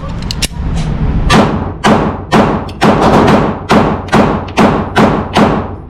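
A rapid string of about ten semi-automatic pistol shots, roughly two a second, each with a long echoing tail.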